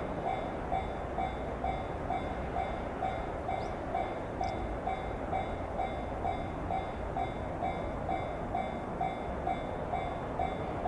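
Japanese level-crossing warning bell ringing steadily, a repeating electronic ding just under twice a second, over a low train rumble.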